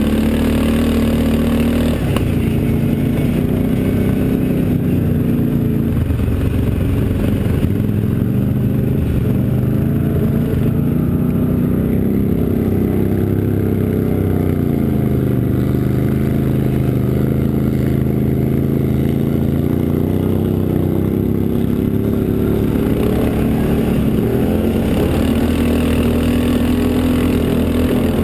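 Quad bike (ATV) engine running under way on a rough dirt track, its pitch rising and falling with the throttle.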